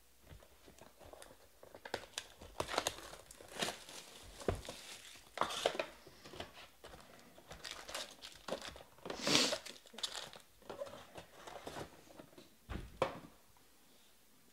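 Foil-wrapped trading-card packs crinkling and rustling as they are handled, pulled out of a cardboard hobby box and stacked, in irregular bursts that are loudest about nine seconds in.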